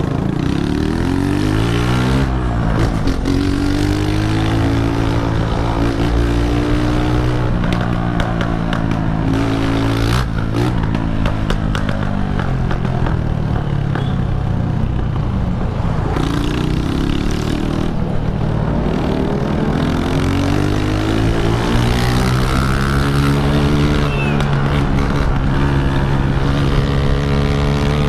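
Honda CG125 single-cylinder motorcycle with a straight-through exhaust, riding. The engine pitch climbs as it accelerates, holds, and falls away with gear changes and backing off, several times over.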